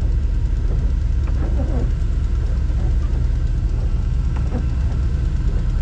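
Truck engine running with a steady low rumble while the truck is eased slowly into a tight parking spot.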